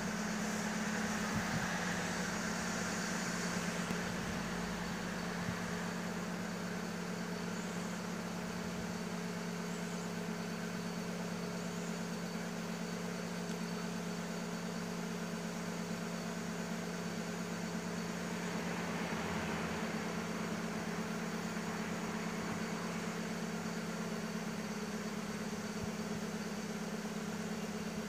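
A steady low mechanical hum over a faint hiss, like an engine or machine running at idle.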